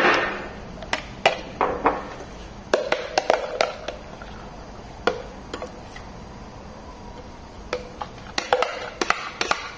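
Metal knife scraping and tapping against the inside of a plastic blender cup while scooping out thick mayonnaise, in irregular clicks and scrapes with a quieter stretch a little past the middle.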